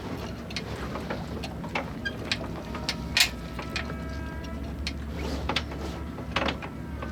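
Sailboat deck gear working: irregular clicking and ratcheting, like a winch and blocks as a sheet is handled, with a faint squeal a few seconds in.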